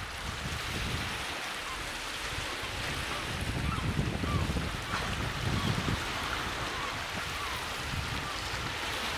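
Wind gusting on the microphone over waves lapping on a rocky shore.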